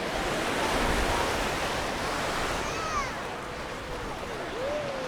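Mediterranean surf washing onto a sandy beach, a steady rushing hiss, with faint distant voices over it.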